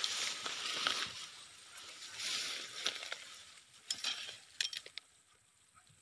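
Tall grass and leaves rustling and crackling against someone crawling through them, with a few short, sharp snaps of stems about four seconds in.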